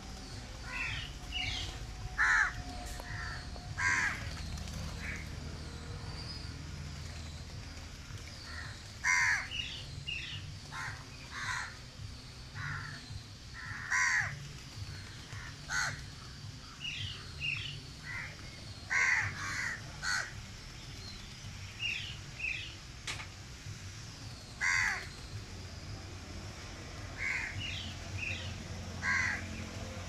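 Crows cawing, short harsh calls in bunches every second or two, several birds at once with some calls overlapping.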